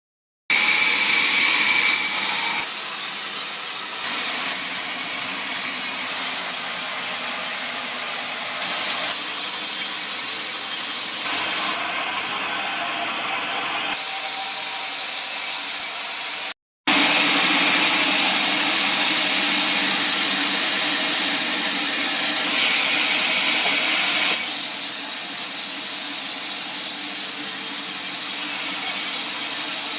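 Sawmill saw cutting a mahogany log: a steady machine noise, in spliced stretches with abrupt jumps in level and a short dropout to silence just past halfway.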